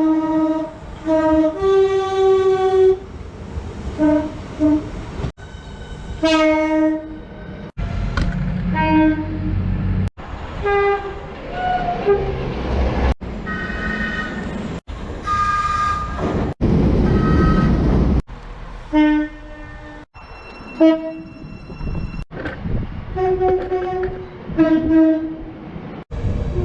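Train horns sounding in a rapid series of short clips cut back to back, each a blast or two, some single-note and some multi-note chords. Several clips carry the low rumble of a train running past beneath the horn.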